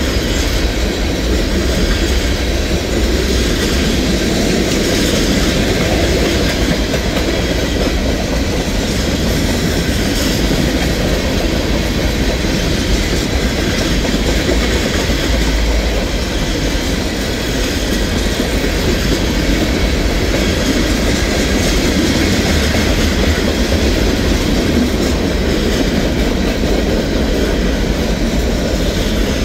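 Freight cars of a Norfolk Southern train rolling past steadily, their steel wheels running over the rails with a continuous rumble.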